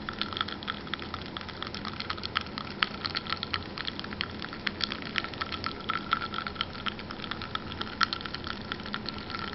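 Ice cubes in a cup of water crackling and clicking close to the microphone: many small, irregular ticks that begin suddenly and keep on throughout.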